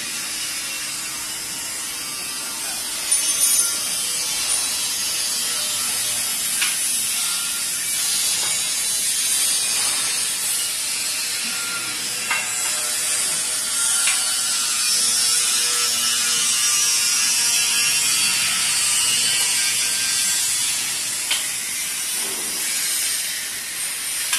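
Steady mechanical ratcheting and clicking of metal parts while a roller heat press transfer machine is being assembled, with a few sharp knocks, the loudest about three seconds in.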